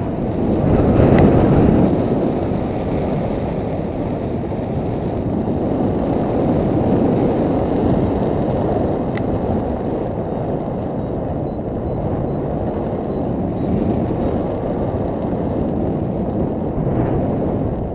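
Airflow of paraglider flight buffeting a foot-mounted GoPro Hero2's microphone: a steady, loud rumble of wind noise that swells briefly in the first two seconds.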